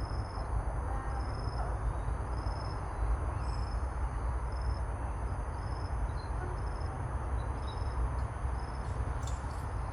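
Crickets chirping in a regular pulse, a little more than once a second, over a steady high insect trill, with wind rumbling on the microphone.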